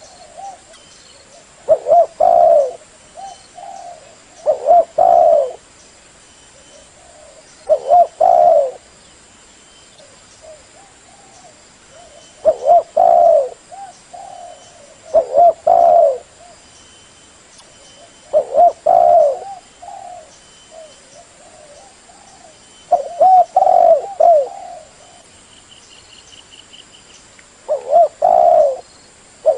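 Spotted dove cooing: a short phrase of a few low coo notes, repeated every few seconds.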